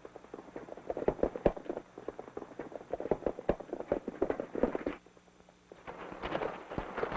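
Horses' hooves clip-clopping on hard, rocky ground in a quick, irregular run of hoofbeats. The hoofbeats drop out for a moment about five seconds in, then return more densely.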